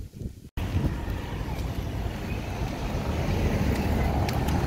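Road traffic: a steady, dense rumble of vehicles passing, heaviest in the low end. It starts abruptly about half a second in, after a brief quieter stretch with a few light taps.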